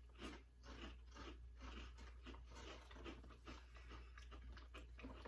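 Crunchy pizza-flavoured chips being bitten and chewed: faint, irregular crunching, many small crackles in quick succession.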